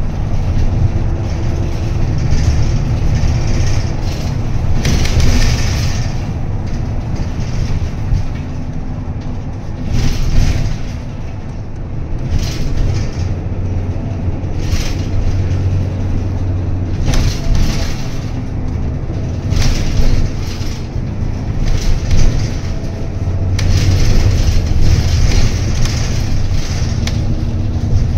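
Inside a city bus under way: the engine's low steady drone and road noise, with a few single thumps.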